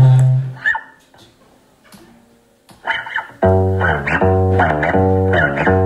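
Acoustic guitar strumming chords in a steady rhythm, coming in about halfway through after a near-quiet pause. A brief, loud deep tone sounds right at the start.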